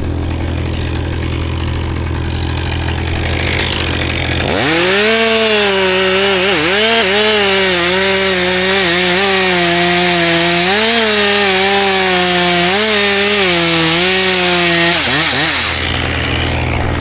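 Chainsaw idling, then revved up about four seconds in and cutting through a cherry limb for about ten seconds, its pitch dipping and recovering as the chain bites. It drops back to idle near the end.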